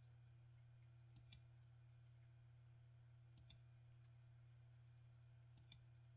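Faint computer mouse clicks: three press-and-release pairs about two seconds apart, over a low steady hum.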